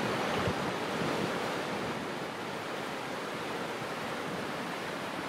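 Small surf waves breaking and washing over the shallows close by: a steady rush of water, a little louder in the first second or so.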